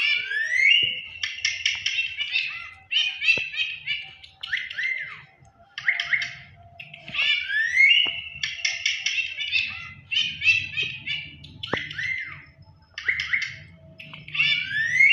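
Bird chirps and whistles in quick phrases, each round opening with a rising whistle; the same sequence repeats about every seven and a half seconds, like a looped recording.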